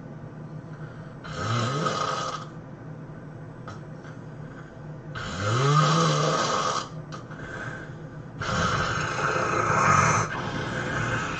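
A person snoring loudly: three heavy snores a few seconds apart, the first two sweeping upward in pitch.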